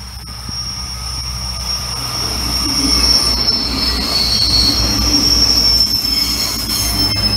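Two coupled Alstom Coradia LINT diesel multiple units passing on a curve, their wheels squealing in a steady high whine over the low rumble of the running gear and engines. It grows louder over the first few seconds and is loudest in the middle as the cars go by.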